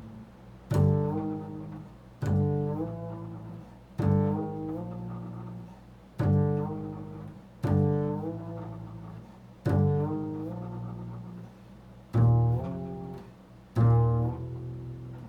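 Slow improvised music on a low string instrument: a deep note or chord sounded eight times, roughly every two seconds, each one ringing and fading before the next.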